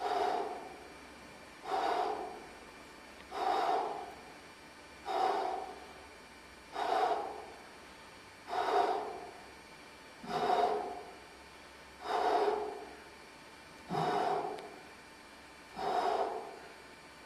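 A man's heavy, forceful breaths, one with each repetition of bent-over T-bar rows, coming evenly about every second and three-quarters, ten in all.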